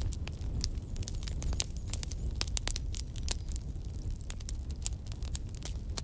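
Wood fire burning in a fireplace: the logs crackle with many irregular sharp pops over a low steady rumble.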